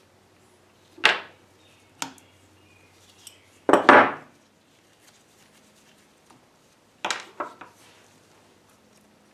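Hand tools and metal machine parts clanking and knocking as they are handled and set down, five or so separate sharp knocks, the loudest a double knock about four seconds in.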